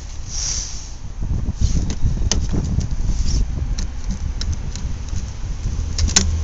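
Low outdoor street rumble with scattered light clicks and taps, and two sharper clicks, one about two seconds in and one near the end.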